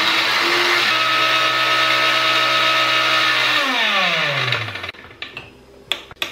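Electric mixer grinder's small chutney jar running at full speed, grinding hog plums with dried red chillies. A little over three seconds in it is switched off and the motor winds down, its pitch falling over about a second. A few sharp clicks near the end.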